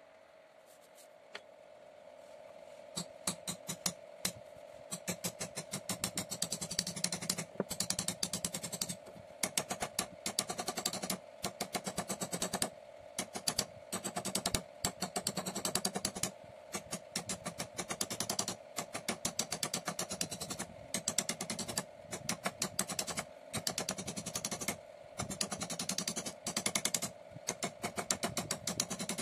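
A pointed punch tapped rapidly against a paper carving pattern on a wooden panel, pricking rows of dots along the drawn lines to transfer the design onto the wood. The taps come in quick runs with short pauses between them and start a few seconds in.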